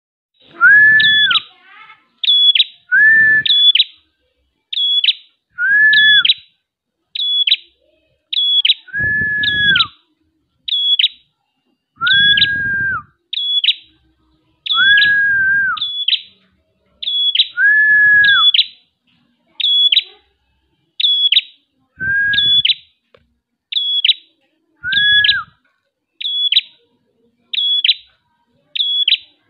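A caged prenjak kepala merah, a red-headed tailorbird, singing in full, insistent song close to the microphone. Its sharp, high double note repeats about every second and a quarter, and many are joined by a lower whistled note that rises and falls.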